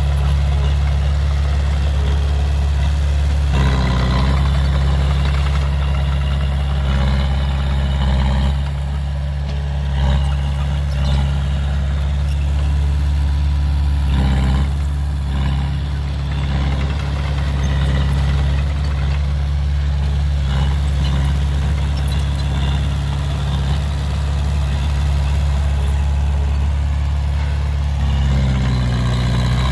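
Heavy diesel engine of earth-moving machinery running steadily at a low idle, its note shifting briefly a few times.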